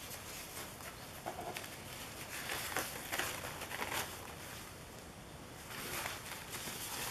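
Paper napkins being handled: soft rustling and crinkling, heard as a string of short, scattered rustles and light ticks.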